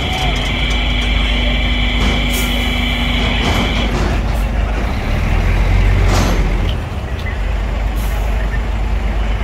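Heavy diesel truck engine running with a steady low rumble that grows louder about five to six seconds in. A steady high-pitched whine sounds over it and stops about four seconds in. A short hiss of air comes at about six seconds, like an air-brake release.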